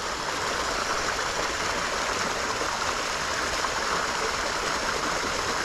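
A small creek's stream spilling over a little waterfall into a pool: steady running, splashing water.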